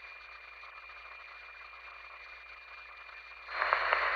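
Police radio receiver hissing on an open channel between transmissions, with a faint high steady tone. About three and a half seconds in the static jumps louder as the next transmission keys up.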